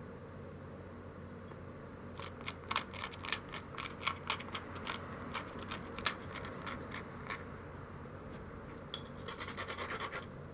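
A rounded stone abrader scraped in short strokes along the edge of a knapped stone biface, grinding the edge to prepare it for the next flake removals. The strokes start about two seconds in at a few a second, stop a little past halfway, then come back as a quicker run near the end.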